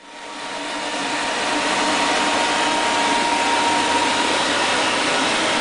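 Steady rushing noise with a thin steady whine, fading in over the first second or two, like a fan or blower running.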